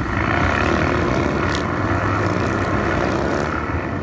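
Several motorcycle engines running together in a steady drone as a group of display riders crosses the arena at speed.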